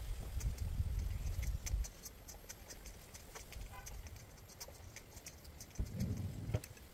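Moose steak and bologna frying in a pan on a portable gas camp stove, sizzling with many small crackles and pops. A low rumble runs through the first two seconds and comes back briefly near the end.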